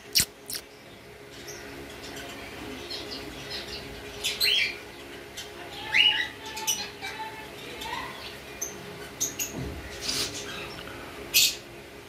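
Frillback budgerigars chirping, with scattered short, sharp calls over a faint steady hum.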